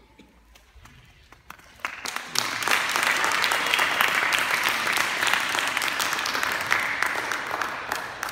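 Audience applauding in a large hall. A few scattered claps grow into full, steady applause about two seconds in, which dies away near the end.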